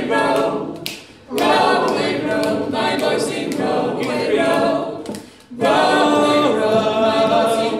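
Three voices, a woman and two men, singing a folk song unaccompanied in close harmony. The phrases break off twice for a short breath, about a second in and just after five seconds in.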